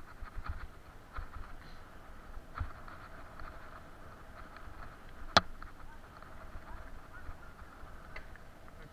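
Bicycle rolling fast over a bumpy dirt trail while a dog pulls it, with many small rattles and knocks from the frame and tyres. One sharp, loud knock comes about five seconds in.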